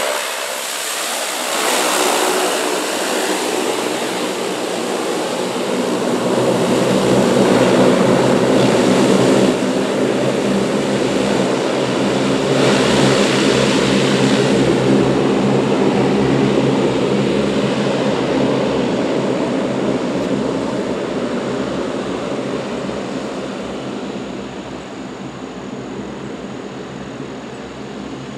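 Twin turboprop engines of a Saab 340 airliner running at taxi power, a steady propeller drone with a whine over it. It is loudest about a third of the way in and fades gradually toward the end as the aircraft moves away down the runway.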